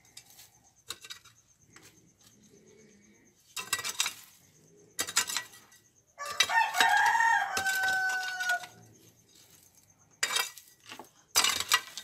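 Metal hoe chopping and scraping into dry, stony soil, a handful of sharp strikes with grit rattling. About six seconds in, a rooster crows once for a couple of seconds, the loudest sound.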